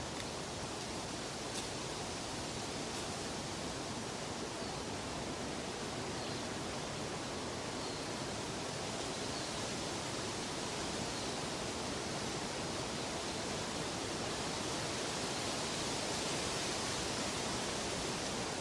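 Steady, even rushing noise of running water, unchanging throughout.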